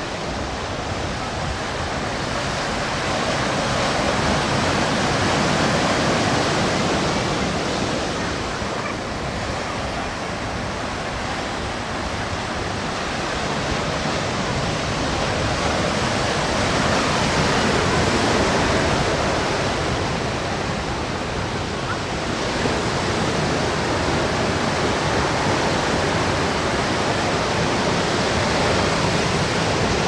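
Ocean surf breaking and washing up a sandy beach: a steady rush of water that swells louder twice, about five and about eighteen seconds in.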